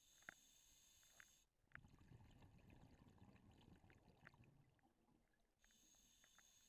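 Near silence with faint scuba breathing through an underwater camera housing: a hiss of an inhale through the regulator, then a longer low bubbling exhale, and the hiss of the next inhale near the end, with a few faint clicks.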